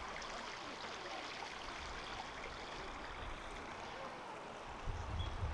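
Steady rushing of a small creek's flowing water, with a brief low rumble near the end.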